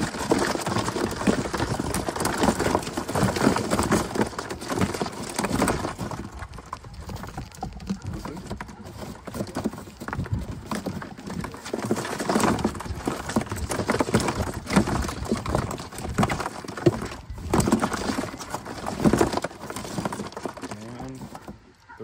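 Live quail fluttering and scrabbling in a bird box as they are grabbed by hand, an irregular clatter and rustle of wings and feet against the box.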